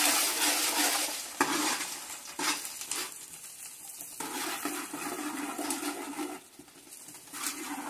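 Hot oil sizzling and bubbling hard in a large aluminium pot, stirred with a steel spoon that knocks and scrapes against the pot a few times in the first three seconds. The sizzle fades to much quieter about two-thirds of the way through.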